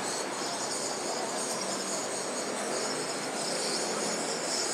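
Steady outdoor background noise: an even, high-pitched buzz over a low hiss, with no distinct events.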